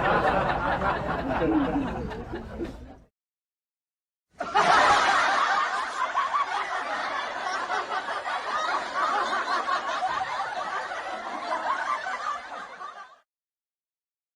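Two stock laughter sound effects one after the other: the first fades out about three seconds in, then after a short silence a longer stretch of laughter runs for about nine seconds and stops shortly before the end.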